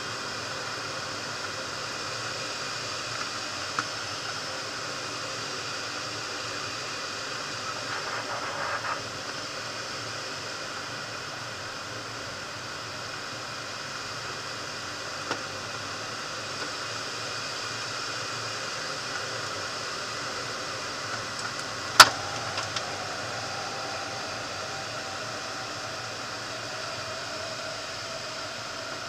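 Steady rush of air over a glider's closed canopy in flight: an even hiss with no engine. A single sharp click about two-thirds of the way through, and a faint tone that slowly falls in pitch near the end.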